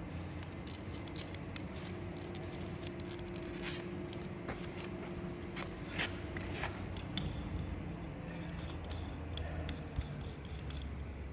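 Makita 40V Max cordless drill running with a cobalt bit cutting into metal: a steady low motor hum with a faint held tone for the first half, and scattered scraping clicks as the bit bites.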